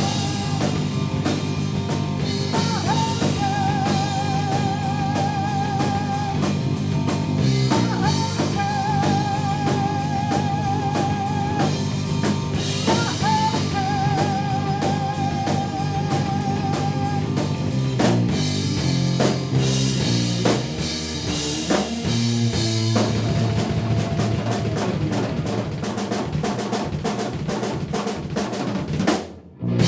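Rock band playing: drum kit, bass and electric guitar, with long held notes wavering with vibrato over a steady low line. Just before the end the sound drops out briefly, then comes back.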